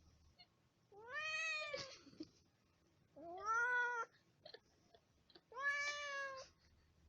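Domestic cat meowing three times, each drawn-out meow lasting under a second and bending up then down in pitch.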